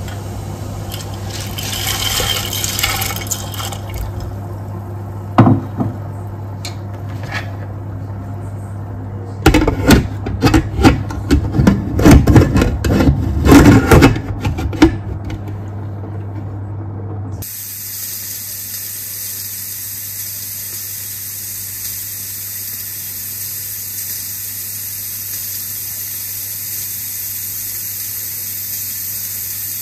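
Kitchen clatter of items knocking and being handled over a steady low hum, loudest in a run of knocks from about ten to fifteen seconds in. From about halfway on, a kitchen tap runs with a steady hiss.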